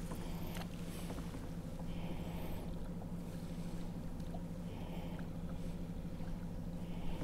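Electric trolling motor humming steadily as it holds the boat in place on anchor lock, with a few faint ticks.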